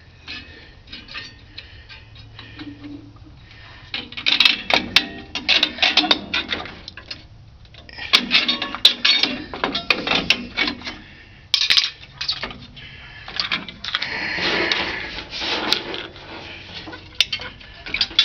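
Hand tools working on rear drum-brake hardware: metal clicking and clinking on the springs and adjuster in several bursts, with a longer stretch of scraping near the end.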